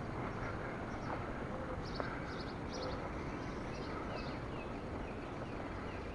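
Steady outdoor background noise with small birds chirping in short bursts throughout, and a light click about two seconds in.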